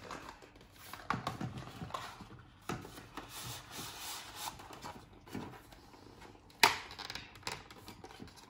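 Cardboard Nespresso capsule sleeve being worked open along its perforated edge inside a pod dispenser: irregular scraping, rubbing and tearing of card with scattered small clicks, and one sharp knock about two-thirds of the way through.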